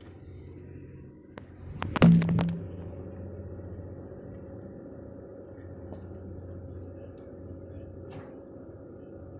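Fishing boat's engine running with a steady low hum. About two seconds in there is a short, loud clatter of knocks and thuds.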